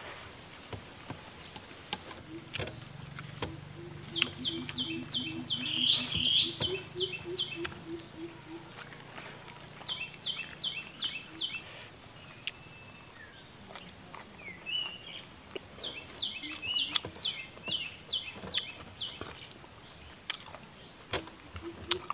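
Rural outdoor ambience: a steady high insect trill starts a couple of seconds in and holds, with several bursts of rapid repeated bird notes and a low, quickly pulsing animal call. Scattered soft clicks and crunches of someone eating raw vegetables and rice by hand from a metal tray.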